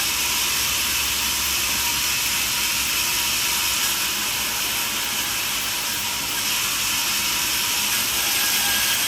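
Portable band sawmill running, its blade cutting steadily through a log with an even hiss.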